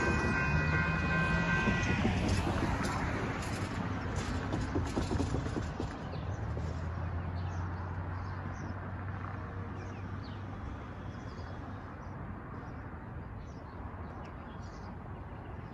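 Railroad crossing's electronic bell, a new NEG e-bell, ringing a steady tone that stops about two seconds in as the gates finish rising. A broad rumble of the departing train and street traffic then fades away, with birds chirping in the later part.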